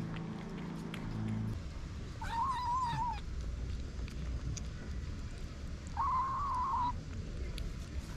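Young kitten meowing twice, each call about a second long with a wavering pitch. Background music ends about a second and a half in.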